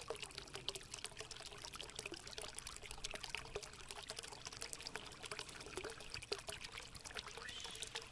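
Faint trickling, bubbling water with a dense crackle of small pops.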